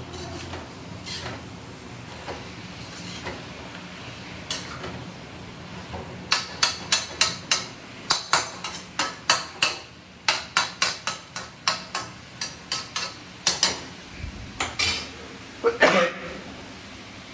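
Kitchen utensils knocking in a quick run of sharp strikes, several a second, starting about six seconds in and stopping shortly before the end.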